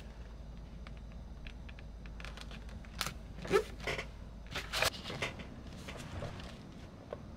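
Paper envelopes and sticker sheets being handled on a desk: light rustling and small clicks, with a few louder rustles and taps about three to five seconds in as the envelopes are gathered up. A low background hum stops about five seconds in.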